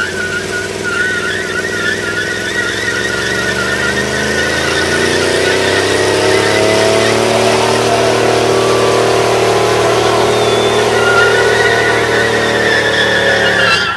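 Pickup truck engine held at high revs during a burnout, the rear tire spinning in place against the pavement. The engine pitch climbs a few seconds in and then holds while the sound grows louder, with a wavering tire squeal at the start and again near the end.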